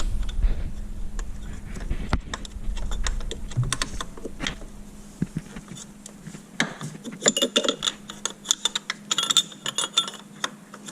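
Metal wrenches clicking and clinking against the power steering line fittings as the AN fittings are tightened. There is a low rumble in the first few seconds, and the clinks come thickest in the second half.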